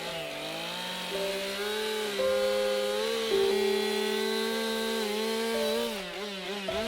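Chainsaw running while carving wood, its engine pitch dipping and rising as the chain bites into and clears the cut.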